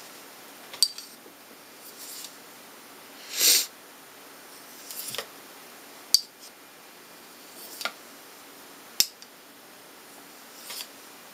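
Mora Bushcraft carbon-steel knife blade drawn across a Fallkniven DC4 sharpening stone in slicing strokes, honing a dulled edge: a few short scrapes, one longer swish about three seconds in that is the loudest, and three sharp clicks as the blade meets the stone.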